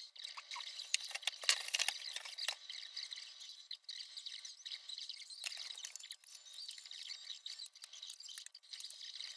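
Light clattering and rustling of thin laser-cut balsa kit parts and paper being handled, with a busier flurry of clicks about one and a half to two and a half seconds in.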